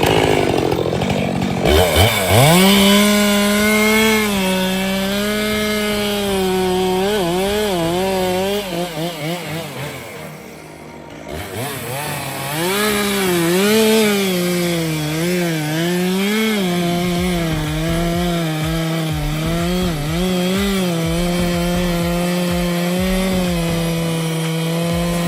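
Stihl MS 462 two-stroke chainsaw revving up to full throttle and cutting the notch in a Douglas fir trunk, its pitch wavering as the chain loads in the wood. About ten seconds in it drops back briefly, then revs up again and cuts steadily.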